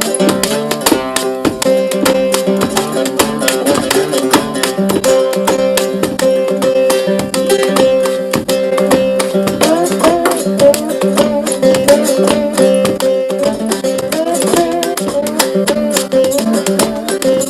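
Acoustic guitar music, rapidly plucked over steady held notes.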